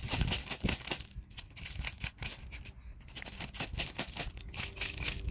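Loose landscape gravel being scraped and pushed aside by hand, the stones clicking and rattling against each other in quick irregular bursts.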